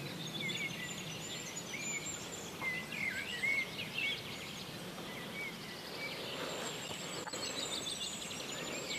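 Several songbirds singing, short whistled chirps and phrases overlapping, with a fast trill in the second half, over a steady outdoor hiss.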